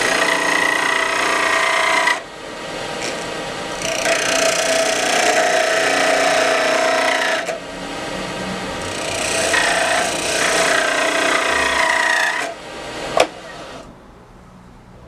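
Wood lathe spinning a maple ring blank on a mandrel while a turning tool cuts it, in three passes of a few seconds each with short pauses between, evening out the wood around a stainless steel ring core. Near the end a sharp click, then the cutting noise stops and only a low hum remains.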